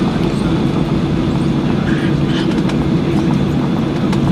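Cabin noise of a Boeing 737-800 taxiing, heard from a seat over the wing: the CFM56-7B engines running at low thrust as a loud, steady low drone and rumble.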